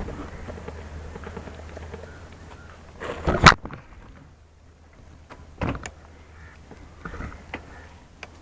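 Bicycle rattling along a rough dirt trail with steady rumble, then a loud clatter about three seconds in, followed by a few lighter knocks as the bike is moved through the grass.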